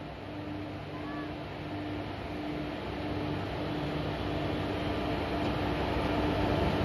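WAP-4 electric locomotive pulling a passenger train slowly away from a platform, its running noise growing steadily louder as it draws past. A low hum pulses about twice a second throughout.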